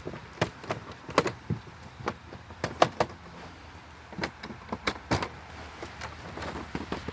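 Irregular clicks, knocks and rattles of handling as a gun case is opened and a pellet rifle is taken out.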